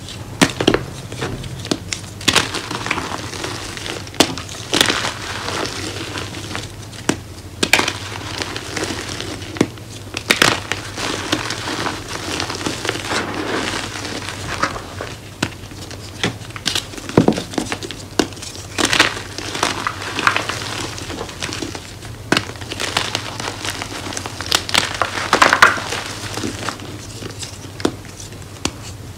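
Bare hands crushing and crumbling blocks of homemade reformed gym chalk into loose powder: irregular, sharp, dry crunches and crackles, several loud ones every few seconds, with soft powdery rustling between.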